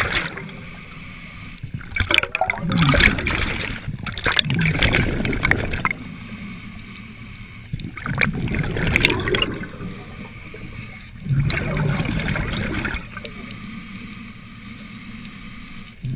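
Scuba diver breathing through a regulator underwater: quieter hissing inhalations alternate with loud rushes of exhaled bubbles, about three bubble bursts in the stretch.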